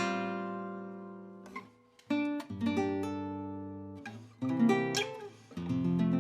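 Solo classical guitar playing a slow melody: plucked chords that ring out and fade, a short pause about two seconds in, then a few quicker notes and another chord near the end.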